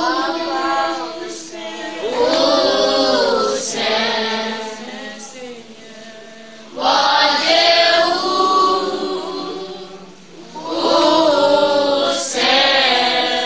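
A group of children singing together, in phrases a few seconds long with brief dips between.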